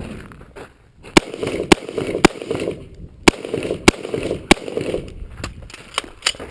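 A string of rifle shots in three quick groups of about three, the shots roughly half a second apart with a short pause between groups, fired during a timed practical shooting stage.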